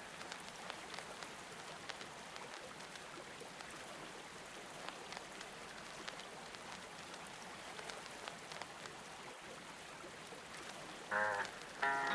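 Steady patter of rain-like falling water with scattered faint clicks. A few pitched music notes come in near the end.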